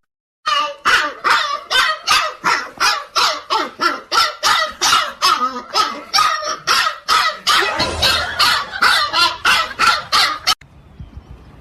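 A dog barking over and over in a fast, even run of about three barks a second, which breaks off suddenly near the end.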